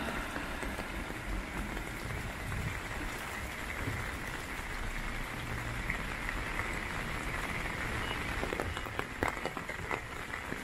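Steady heavy rain falling on a wet city street, an even hiss. From about eight seconds in, sharper single drips tap close by.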